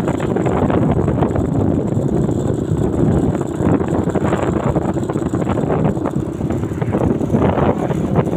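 Wind buffeting the microphone over the steady running noise of a moving vehicle.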